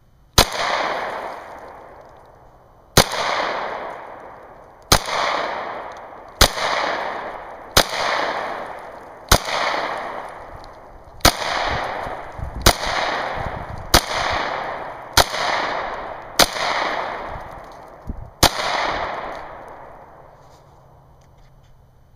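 Glock 26 9mm pistol firing 124-grain +P hollow points one-handed: twelve shots at an uneven pace, about one every one to two seconds. Each sharp crack is followed by a long echo that dies away.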